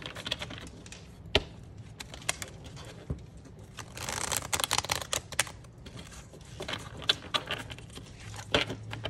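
Tarot cards being handled and shuffled: scattered light clicks and taps, with a longer run of rapid card riffling about four to five and a half seconds in.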